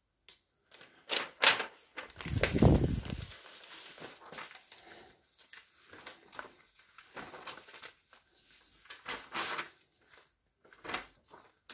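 Sheets of A4 office paper rustling and flapping as a stack is leafed through and pages are turned over, in scattered strokes. The longest and loudest rustle comes about two seconds in.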